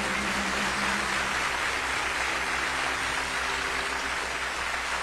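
Large audience applauding steadily, a dense wash of clapping, while the band's last held notes die away in the first second or so.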